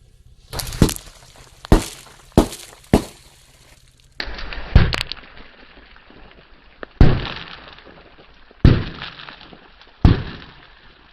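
A series of sharp crashes of breaking glass: four quick smashes about half a second apart, then four more spaced a second and a half to two seconds apart, each dying away in a ringing tail.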